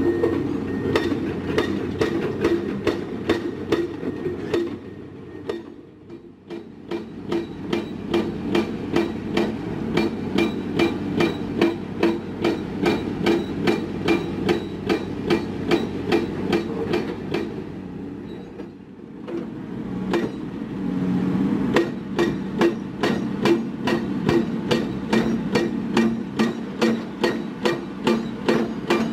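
Heavy construction machinery: a steady engine with regular metallic knocks about two to three a second, easing off briefly twice.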